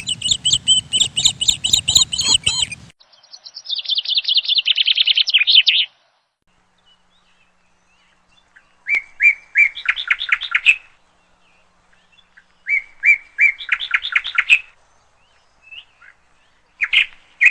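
Songbirds singing in a string of separate short phrases with dead silence between some of them: a fast rattling trill, then a second trill that slips down in pitch, then the same song phrase twice, a few spaced notes running into a rapid series. Short calls follow near the end.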